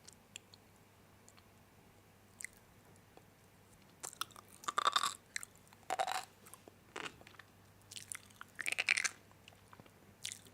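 Crunchy snack being bitten and chewed in a few short crackling bouts, starting about four seconds in.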